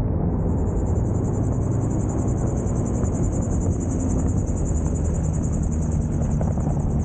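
Magni M-16 gyroplane rolling along the runway after touchdown: its engine runs steadily under low wind rumble on the microphone. A steady high-pitched whine with a fine flutter starts just after the beginning and continues throughout.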